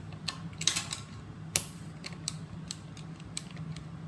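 Light clicks and scrapes of a screwdriver and plastic parts as the last casing screw of an AK-style gel blaster is undone, with a sharper knock about a second and a half in.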